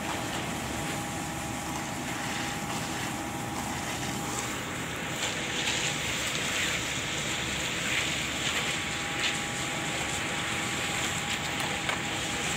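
Concrete-pouring site noise: a steady engine hum. From about five seconds in it is joined by scraping and light knocks of hand tools working wet concrete.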